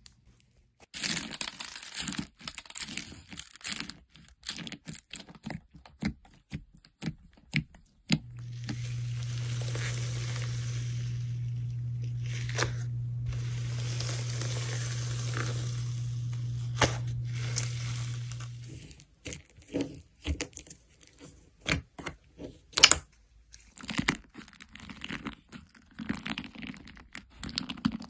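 Fingers squeezing and poking slime: dense runs of small crackling pops and clicks as the slime is pressed and stretched. Through a long stretch in the middle a steady low hum sits under the popping.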